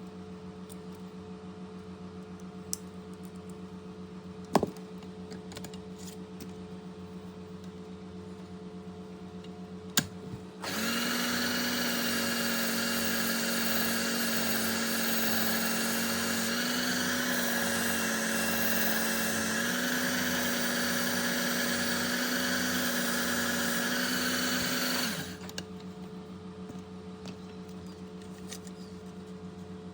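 Work Sharp Ken Onion Edition belt sharpener with its grinding attachment sharpening a pocket knife. A quieter steady hum with a couple of clicks for about ten seconds gives way to a much louder stretch of about fourteen seconds: the motor running with the blade ground on the abrasive belt, a steady whine that shifts slightly in pitch. It then drops back to the quieter hum.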